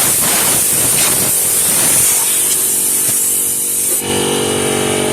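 Ridgid 18V 1-gallon cordless air compressor's hose nozzle blasting compressed air in a loud steady hiss as the tank blows down. About two seconds in the compressor's motor kicks on, and near four seconds the air blast stops, leaving the compressor running with a steady hum as it refills the tank.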